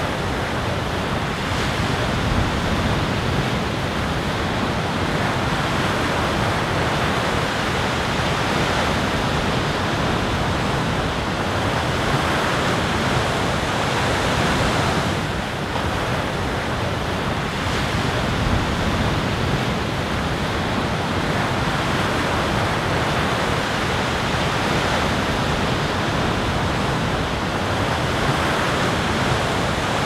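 Ocean surf and wind: a steady, unbroken wash of waves.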